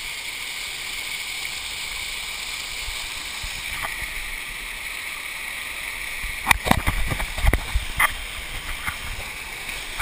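Steady rush of a waterfall close by. From about six and a half seconds in comes a run of loud thumps and splashes as the camera goes down through the falling whitewater.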